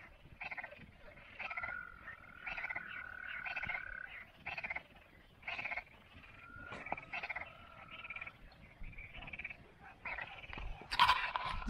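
Frogs croaking in a steady chorus of short calls repeating about once or twice a second, with a steady held note running under them twice for a couple of seconds. A louder brief noise comes just before the end.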